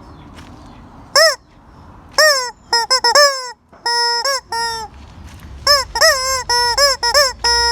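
Screaming rubber chicken toy squeezed again and again, giving a string of loud, pitched squawks starting about a second in. Some are short with the pitch bending up and down, and others are held on one flat note, coming faster and longer toward the end.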